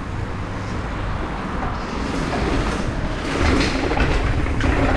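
Riding noise picked up by a helmet-mounted action camera: wind rumbling on the microphone and the mountain bike rattling over rough ground. It grows louder about two seconds in, with a run of clattering knocks.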